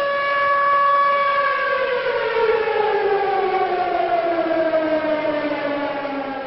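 A siren sounding one steady tone, then winding down: from about a second and a half in, its pitch falls slowly and steadily.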